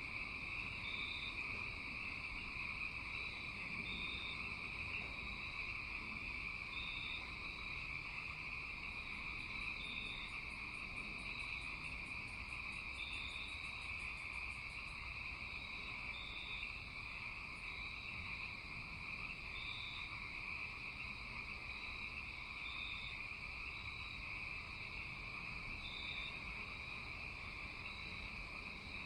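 Nighttime chorus of crickets and frogs: a steady high insect trill, with short chirps repeating every second or few seconds. A fast, faint ticking joins for several seconds near the middle.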